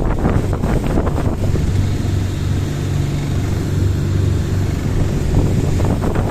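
A boat's engine running with a steady low hum, under heavy wind buffeting the microphone.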